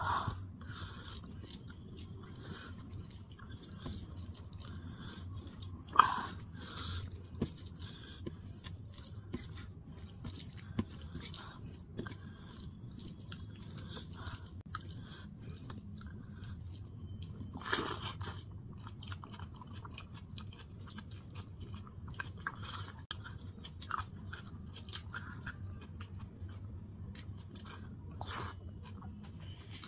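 Eating by hand: wet chewing and the squish of fingers mixing rice and dal on a steel plate, with many small clicks and a few sharper ones, the loudest about six seconds in and another near eighteen seconds.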